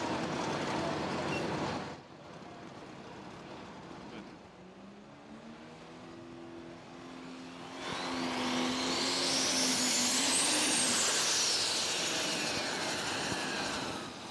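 Turbocharged diesel engine of a super stock pulling tractor. It runs loud, drops back sharply about two seconds in, then is revved hard again near the middle with a high turbo whine that climbs to a peak and falls away. The tractor has a mechanical problem that ends its run and needs fixing.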